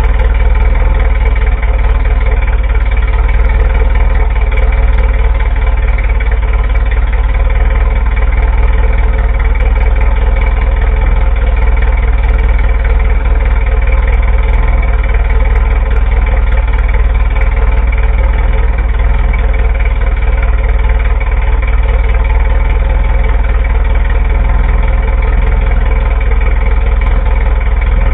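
A dune buggy's 1600 engine idling steadily on a test fire, set up without a fuel pump; the untested engine runs evenly, a sign that it seems to be a good motor.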